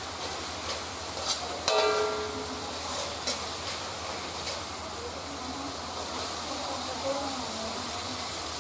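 Sauce sizzling in an aluminium wok while a metal spatula stirs and scrapes it, with a few light taps and one louder metallic clang that rings briefly about two seconds in.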